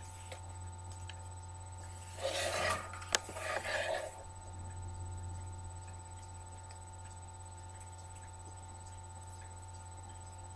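Handling noise from a tobacco pipe being worked in the hands: two short rustling, scuffing bursts with a sharp click between them, over a steady low electrical hum.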